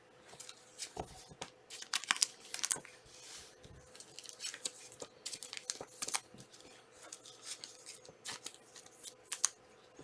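Trading-card pack wrappers being torn open and crinkled, with irregular short crackles and clicks as the cards are handled.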